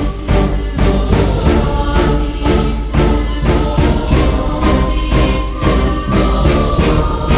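Loud music with a steady driving beat and held notes, with a hint of choral singing.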